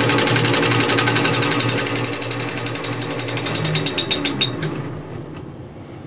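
Fly cutter turning in a South Bend lathe, milling a bevel along an aluminum bar, a fast, even chatter with a steady high ring. About four and a half seconds in the chatter breaks up and stops, leaving a quieter hum.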